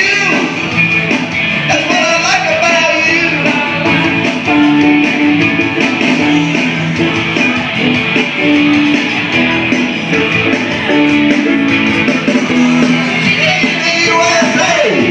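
Loud rock-and-roll music playing continuously, with a singing voice and guitar.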